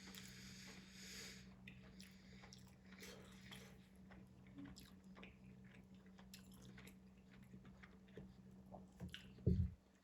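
A person chewing and biting into a sub sandwich close to the microphone, with many small wet mouth clicks and smacks. A louder short thump comes near the end, over a steady low hum.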